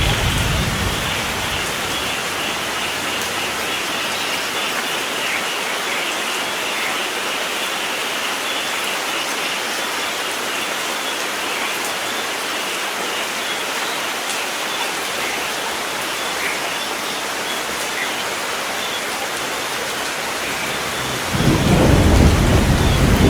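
Steady rain falling in a thunderstorm. A low thunder rumble fades out in the first second or so, and a new roll of thunder breaks in suddenly near the end.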